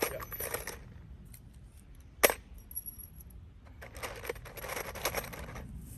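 Metal clinking and clattering from tools or mill parts being handled, with one sharp knock about two seconds in.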